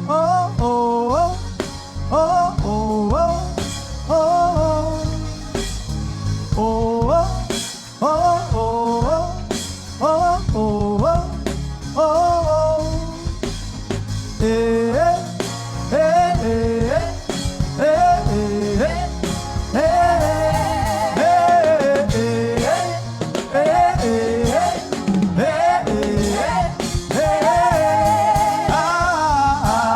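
A single voice singing long melodic phrases of worship over an instrumental accompaniment with a steady low beat.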